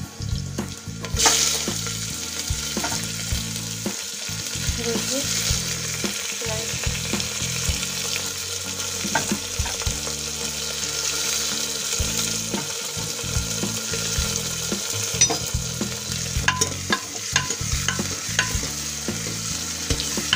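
Sliced onions sizzling in hot oil in an aluminium pressure cooker, the hiss starting suddenly about a second in as they go into the oil. A metal spoon stirs them, clicking and scraping against the pot now and then.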